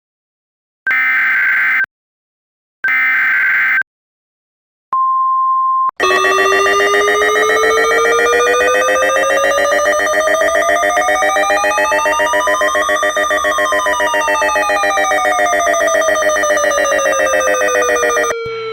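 Emergency Alert System SAME header bursts, three screeching data bursts of about a second each, followed by a one-second steady 1050 Hz weather radio alert tone. Then a weather radio's alarm sounds for about twelve seconds, a buzzing tone whose pitch slowly rises and falls, cutting off just before the tornado warning is read.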